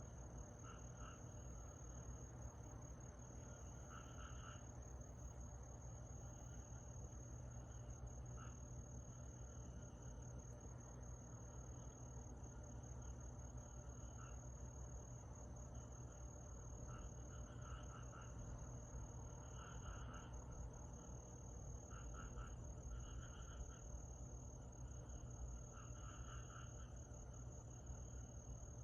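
Summer night insects chirring: a steady high-pitched trill, joined every few seconds by short bursts of lower calls from another creature.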